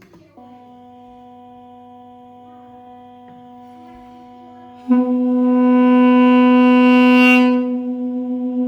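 Duduk in the key of H (B) holding one long low note, pitched near B. It starts softly, swells suddenly much louder about five seconds in with a brighter, reedy tone, and eases slightly near the end.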